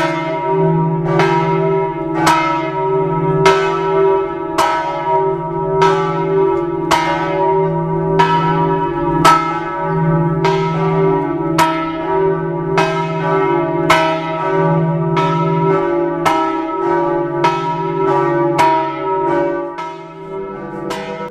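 Church bell of the Campanile di San Marco tolling steadily at about one stroke a second, each strike leaving a deep hum ringing under the next. The strokes stop shortly before the end and the hum fades away.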